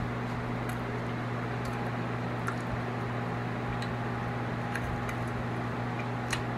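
Steady low electrical hum and hiss of a running electric room fan, with a few faint clicks of chewing on a crispy fried chicken wing.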